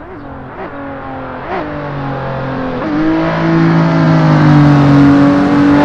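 Race car engine sound that grows louder over the first three seconds, with a few brief revs, then runs steadily at a near-level pitch.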